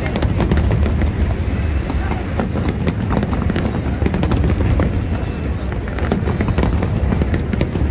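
Fireworks going off in quick succession: many sharp bangs and crackles over a continuous low rumble, with voices from the crowd underneath.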